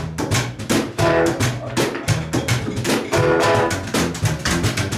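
Rockabilly band playing live: a hollow-body guitar strumming chords over a fast, steady percussive beat.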